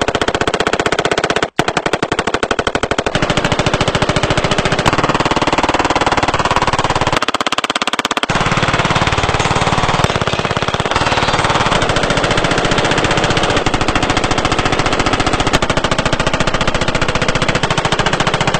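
Guns firing in long strings of very rapid shots at an automatic rate, from handguns and an AR-style rifle. The fire breaks off for an instant about a second and a half in, then runs on.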